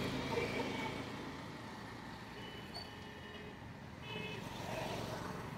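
Road ambience: a motor vehicle's engine rumble fading away as it passes, followed by a few short high-pitched tones.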